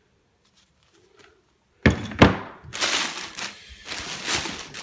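Two sharp knocks of items being handled in a packaging box, then continuous crinkling and rustling of packaging being handled.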